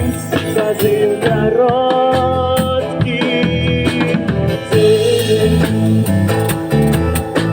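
Band music with guitars and bass guitar playing an instrumental passage. A sustained, bending lead melody with vibrato runs over steady bass notes and a beat.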